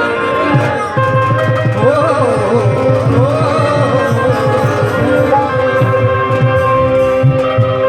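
Instrumental introduction of an Indian devotional song: hand-drum beats under a wavering, gliding melody line, with no words sung yet.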